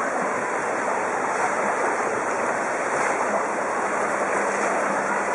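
Floodwater rushing down a street in a swift current: a steady, even rush of churning water.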